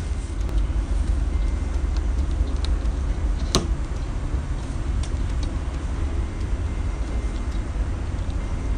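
Steady low rumble with one sharp click about three and a half seconds in.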